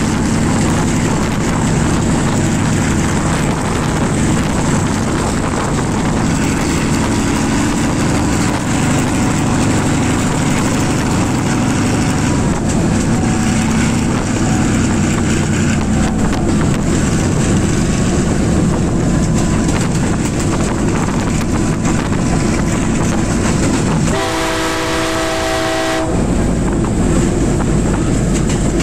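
Class M2c diesel locomotive running under power with its coaches rumbling over the rails, heard close up from just behind it. About 24 seconds in, its horn sounds once for about two seconds, a chord of several tones.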